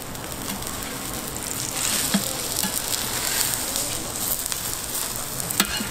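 Green-onion pancakes (buchimgae) frying in oil on a large round griddle: a steady sizzle, with the metal spatula scraping and tapping on the griddle, the sharpest tap near the end.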